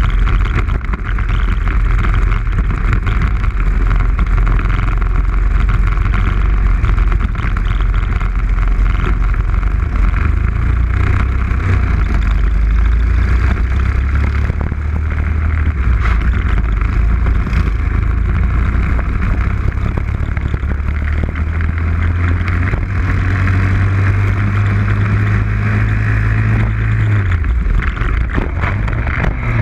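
Four-stroke single-cylinder 420 cc racing kart engine running hard, heard onboard with rushing wind. Near the end the engine note climbs steadily, drops sharply as the throttle comes off, then picks up again.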